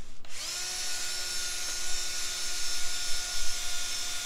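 A power tool spins up about a quarter second in and runs steadily, a brass wire wheel scrubbing the top deck of a Honda B18B1 engine block clean so the head gasket can bite.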